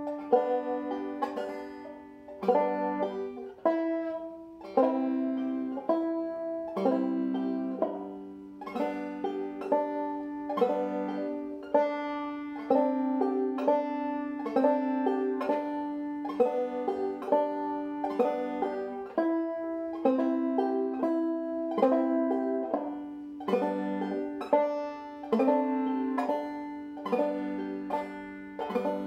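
Deering Goodtime open-back banjo played slowly in clawhammer style, a bum-diddy rhythm of evenly spaced strums and plucks changing between G, C and D7 chords, each stroke ringing out.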